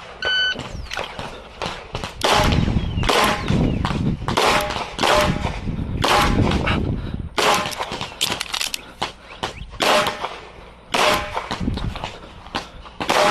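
A shot-timer beep starts the run, then a competition pistol (CZ Shadow 2) fires rapidly in quick strings of shots with short pauses between them as the stage is shot.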